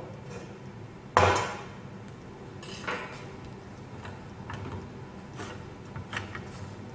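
Knocks and clatter of a plastic hand-crank spiralizer being handled and set up on a wooden tabletop: one sharp knock about a second in, then several lighter knocks.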